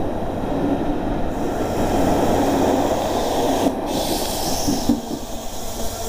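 Rake of British Pullman coaches running past at speed: a steady rumble and rush of wheels on rail, with the sound changing abruptly a few times as the shots cut.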